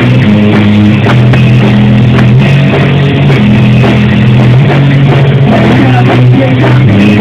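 Rock band playing a song: electric guitar, bass and drums, loud and steady, with drum hits beating at a regular pace under sustained low notes.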